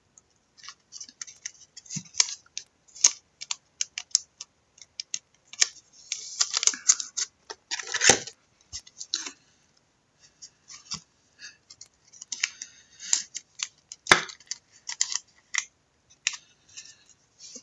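Trading cards and plastic card holders being handled: scattered sharp clicks and short rustling scrapes, busiest about six to eight seconds in.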